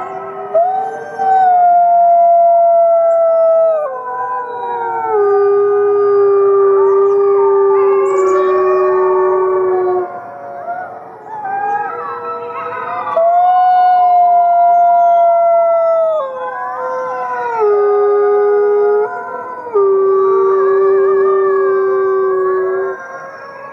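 Gray wolves howling in chorus: several long howls overlap, the loudest each starting on a high note and stepping down to a lower held note.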